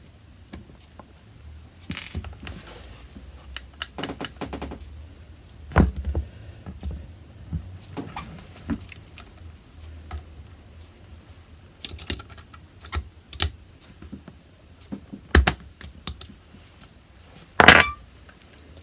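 Small steel parts of a Remington Express air rifle's trigger assembly clicking and clinking as they are handled and fitted back together by hand: irregular light clicks and taps, with a sharper metallic clink and a brief ring near the end.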